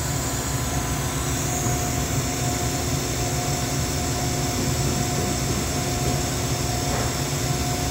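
Alternator test bench spinning a 180-amp dual-internal-fan alternator under a 70-amp load: a steady machine hum with a faint high whine.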